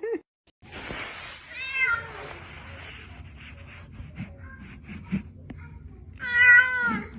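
Domestic cat meowing twice: a short call about a second and a half in, then a louder, longer meow near the end.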